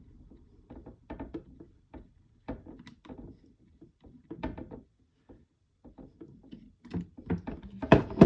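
Scattered light clicks and knocks of small screws and 3D-printed plastic chassis parts being handled, with a louder cluster of knocks near the end.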